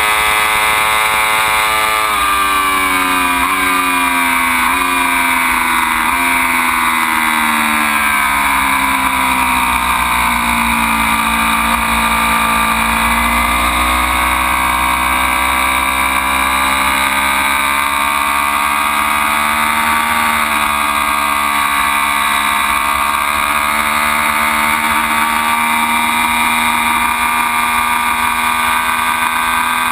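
Ducati Panigale V4's V4 engine on track. It shifts down several times in the first few seconds as the revs fall to a low point about halfway through. The revs then climb again under acceleration, hold fairly steady, and step down once more near the end.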